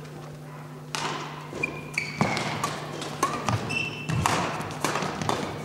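Badminton rally: starting about a second in, rackets strike the shuttlecock with sharp knocks roughly once a second. Short sneaker squeaks and thudding footsteps on the court floor come in between.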